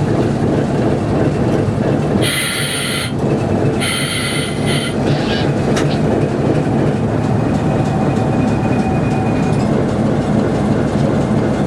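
The Virginia & Truckee D2 diesel locomotive and its coaches running on the track: a steady engine hum with wheel clatter on the rails. Two short, high-pitched bursts sound about two and four seconds in.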